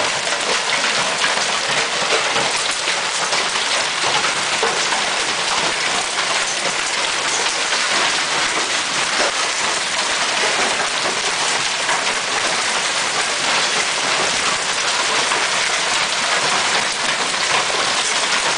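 Hailstorm: hailstones falling steadily onto pavement, parked cars and leaf litter, a dense unbroken clatter of countless small impacts.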